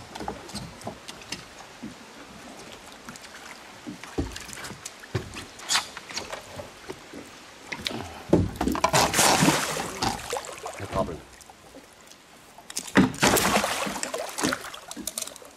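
Water splashing and sloshing against a boat's side as a large spot-tail bass, held on a lip grip, thrashes at the surface, with scattered knocks. Two loud bouts of splashing, one about midway and one near the end.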